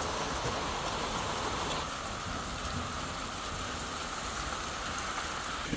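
Steady rain falling on wet ground and foliage.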